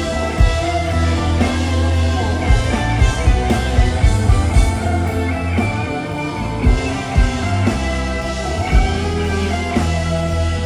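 A rock band playing live: electric guitar lines over sustained bass notes and regular drum hits, an instrumental passage with no singing.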